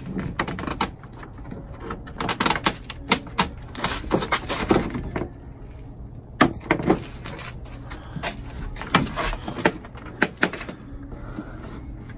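Irregular knocks and clicks of the plastic grille and trim on a Chevy Suburban's front end being handled and pulled loose, over a steady low hum.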